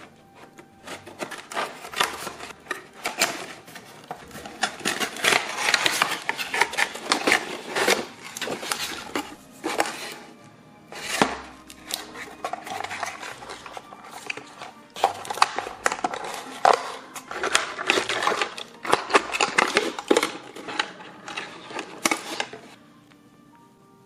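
Cardboard packaging cut with scissors and handled: irregular rustling, scraping and clicking as the box is opened and plastic-coated wire ties are twisted off plastic animal figurines. The handling dies down near the end, leaving faint background music.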